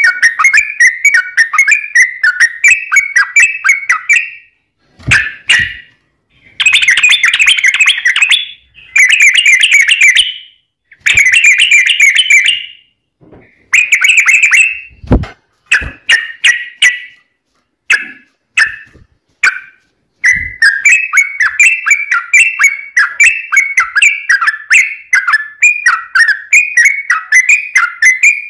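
Yellow-vented bulbul (trucukan) singing in long rapid runs of bubbly, chattering notes, broken by short pauses. A few knocks come through in the middle.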